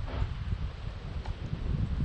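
Wind buffeting the microphone: a gusting low rumble with a faint rush of air above it.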